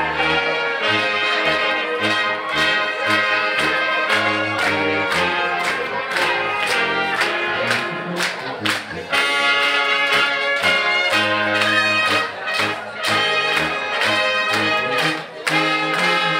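Brass band music: trumpets and trombones playing a melody over low bass notes and a steady beat.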